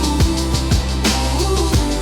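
Instrumental passage of a pop song between sung lines: steady bass, sustained pitched notes and a regular drum beat with kick and cymbal hits.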